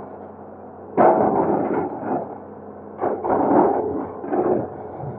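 Excavator breaking up a concrete bridge: sudden crashing impacts about a second in and again near three seconds, each followed by about a second of rattling, falling debris, with a smaller crash near the end, over a steady engine hum.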